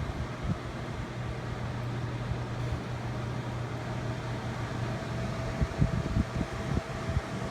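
Honeywell CHS122AE evaporative air cooler running with a steady hum, a faint higher whine and hiss, and irregular low thumps near the end. The owner calls it a terrible noise on first use, heard with the oscillate function on, and says the water pump gets louder after a few hours.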